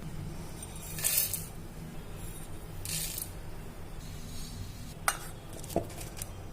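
Kitchen utensils being handled: two short scraping swishes, then a few sharp metallic clinks about five to six seconds in, over a faint steady hum.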